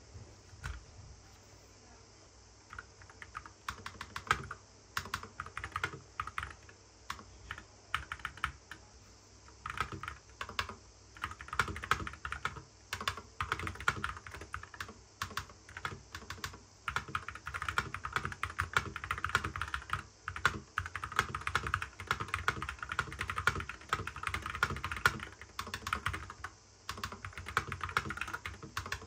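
Typing on a MonsGeek FUN68 HE keyboard with Glare magnetic (Hall-effect) switches. After a couple of quiet seconds, scattered keystrokes start and build into fast, continuous typing.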